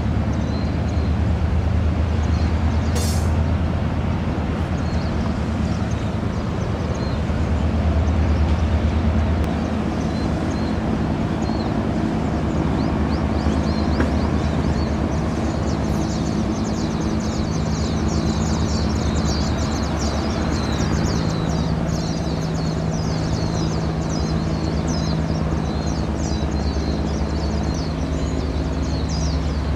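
Low, steady engine drone of a passing coast guard patrol ship under way at speed, over a rushing haze. From about ten seconds in, a dense run of rapid, high-pitched chirping joins it.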